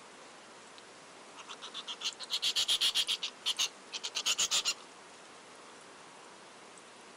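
An animal call: a rapid series of high-pitched pulses, about six a second, in three runs. The first run grows louder over about two seconds, and the calls stop suddenly a little under five seconds in.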